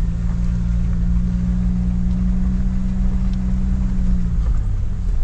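A 4WD's engine droning steadily over the low rumble of tyres on a dirt track, heard from inside the cabin. The engine eases off about four and a half seconds in.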